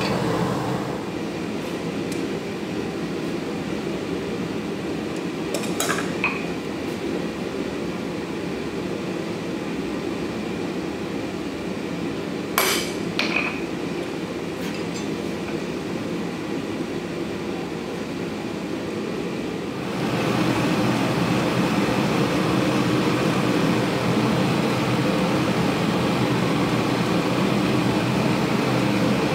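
Steady roar of a gas forge burner, with a few sharp hammer strikes on hot steel at the anvil: a pair about six seconds in and a louder pair near thirteen seconds. The forge roar steps up in level about twenty seconds in.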